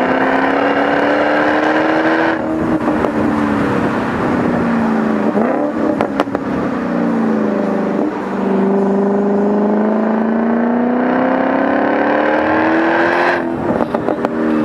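Supercharged 5.0-litre V8 of a 2012 FPV GT 335, on its stock exhaust, pulling through the gears. Its pitch rises, drops away when it eases off about two seconds in, then climbs steadily again from about eight seconds until it eases off near the end.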